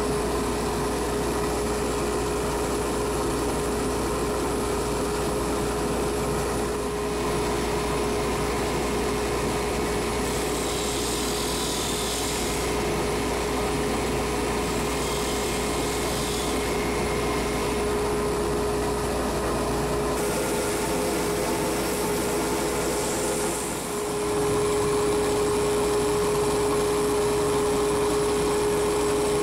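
Wood lathe running steadily with a constant motor whine as sandpaper is held against the spinning pen blanks. Several passes of a brief hiss come and go over the hum, and the sound gets a little louder for the last few seconds.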